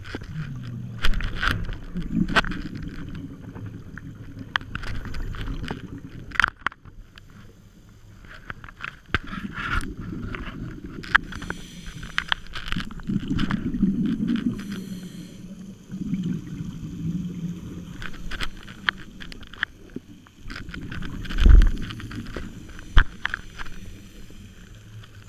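Scuba diving heard underwater through a waterproof camera housing: muffled rumbling swells of regulator breathing and exhaled bubbles every few seconds, with scattered clicks and knocks on the housing and a heavier low thump about twenty-one seconds in.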